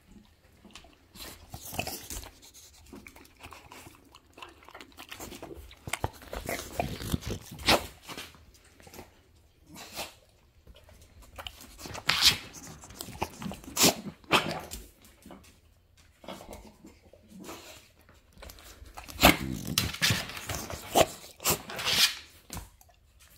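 A dog making short, irregular noises, mixed with sharp clicks and knocks, the busiest and loudest stretch coming near the end.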